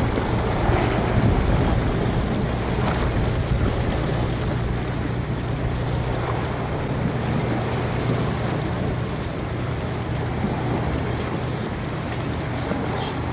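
Sea washing against a rocky shore, with wind on the microphone and a steady low rumble underneath.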